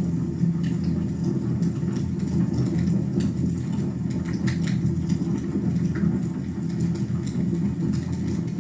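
Fire burning in a fireplace: a steady low rumble with scattered small crackles and pops.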